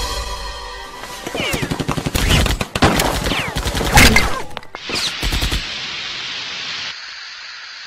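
Soundtrack sound effects: as music fades, a fast, dense run of sharp cracks and knocks starts about a second in and lasts several seconds, like a burst of gunfire. It gives way to a steady hiss that stops shortly before the end.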